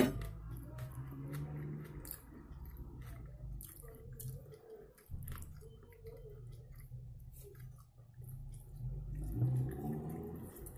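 A person chewing a mouthful of smoked mackerel and boiled potato close to the microphone, with many small wet mouth clicks.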